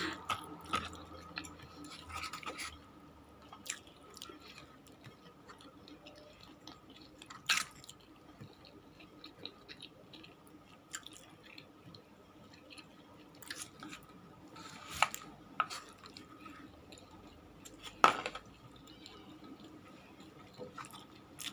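A person eating close to the microphone: quiet chewing with scattered short clicks and taps, the sharpest about 18 seconds in, over a faint steady hum.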